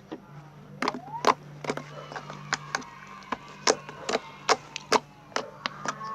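Slime being squeezed and worked by hand, popping with sharp, uneven clicks, about two or three a second.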